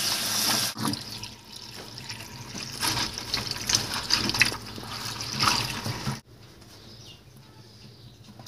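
Tap water running into a plastic bowl of walnut kernels, splashing as a hand rubs and rinses the nuts in it. The stream is loudest in the first second, and the sound drops away sharply about six seconds in.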